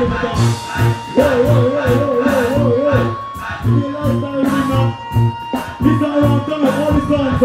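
Live band music with a steady beat about twice a second under a voice singing long, wavering notes.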